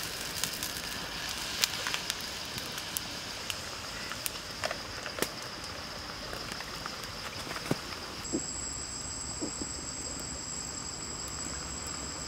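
Wood fire crackling under a wok of heating water, with scattered sharp cracks over a steady high-pitched drone; a second, higher steady tone joins about eight seconds in.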